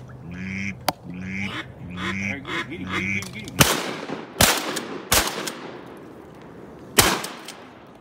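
A string of evenly spaced mallard-style quacks, then four shotgun shots: three in quick succession about halfway through and a fourth about two seconds later.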